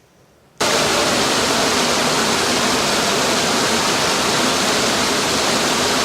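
A waterfall rushing: loud, steady falling-water noise that starts abruptly about half a second in.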